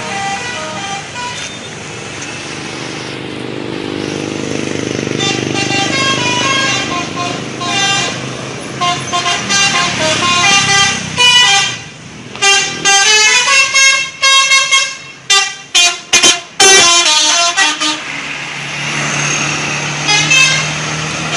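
Telolet musical air horn of a Garuda Mas bus playing quick multi-note tunes, its pitch stepping up and down from note to note. In the middle it sounds as a string of loud short blasts, with a steady low hum underneath.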